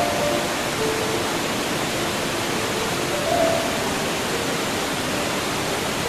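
Steady rush of a waterfall, with soft, slow music over it: short held notes, about one a second.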